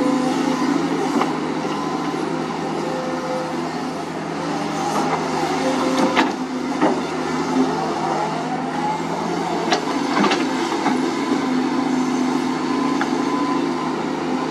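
Sunward SWE210 hydraulic excavator's diesel engine running steadily under load as it digs and swings a full bucket of soil, with a few sharp knocks about six and ten seconds in.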